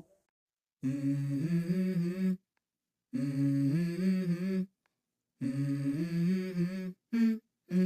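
Background music: a voice humming a short melody in three phrases of held notes that step up and down in pitch, with brief silences between them.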